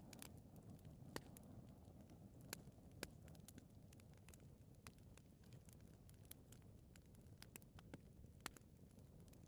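Fire in a fireplace crackling faintly: scattered sharp pops, a few louder than the rest, over a low steady rumble of the flames.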